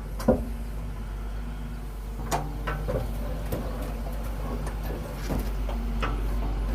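Excavator's diesel engine running steadily, with several sharp metallic clanks and knocks from the machine at work.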